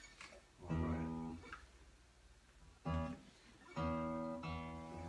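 Taylor acoustic guitar played through a Genzler Acoustic Array Pro acoustic amplifier, turned down low: four chords strummed one after another, each left to ring.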